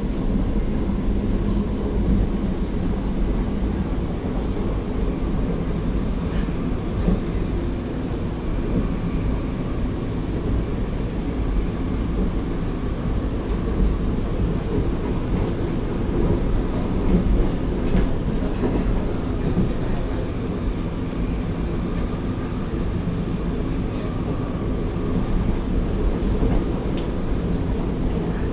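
Alstom R151 metro train running between stations, heard from inside the passenger car: a steady rumble, with a few faint clicks.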